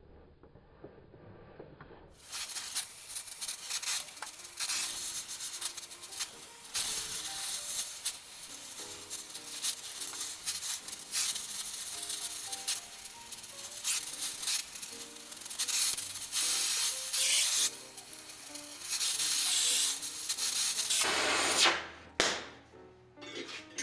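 Gas torch hissing as it heats a wagon brake iron red-hot in a vise, rising and falling unevenly; it starts about two seconds in and cuts off near the end. Background music plays underneath.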